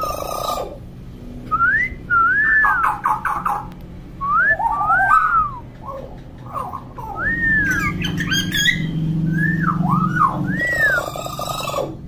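Common hill myna giving a series of loud, clear whistles, each rising and then falling in pitch, with a few short harsh notes in between.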